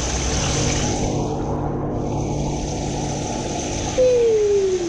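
Muffled, rumbling noise from a microphone held underwater in a fish spa tank, with a steady low hum. Near the end a single loud tone slides down in pitch.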